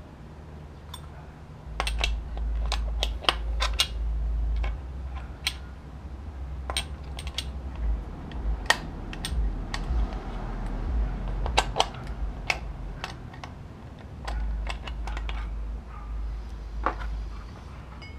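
Irregular clicks and light metallic clinks as motorcycle clutch parts and tools are handled, with stretches of low rumble in between.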